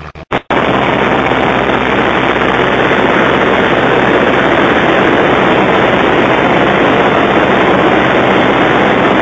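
Loud, steady in-flight cabin noise of a Cessna 152: its four-cylinder Lycoming engine and propeller droning together with the rush of airflow, starting abruptly about half a second in.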